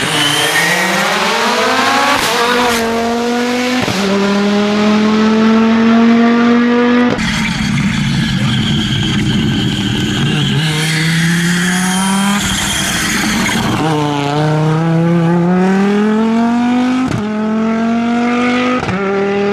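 Audi Quattro S1 rally car's turbocharged five-cylinder engine at full throttle. It revs up through the gears, the pitch climbing and then dropping sharply at each upshift, about six times.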